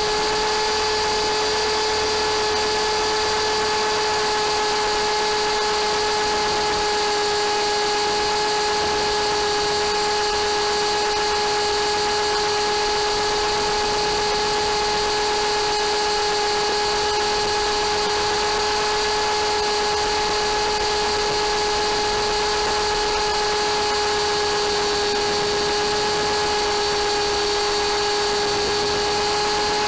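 MSH Mini Protos RC helicopter's electric motor and gear train, heard up close from a camera mounted on the helicopter, giving a steady high-pitched whine at an even pitch over a hiss of rotor wash.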